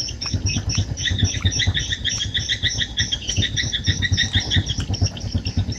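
Swiftlets chirping: a rapid, steady run of repeated high chirps, with a low irregular pulsing underneath.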